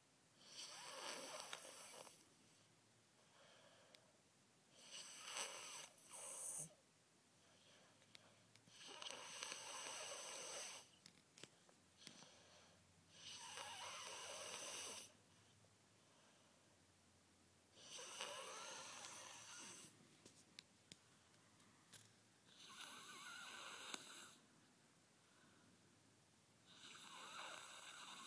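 A young child snoring in his sleep: seven rough, noisy breaths, each about two seconds long, roughly every four seconds. The snoring comes from an airway obstructed by enlarged tonsils and adenoids, a sign of obstructive sleep apnea.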